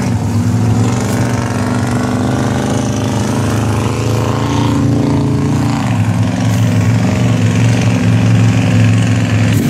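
An off-road vehicle's engine idling steadily, its pitch sagging briefly about five seconds in before settling back.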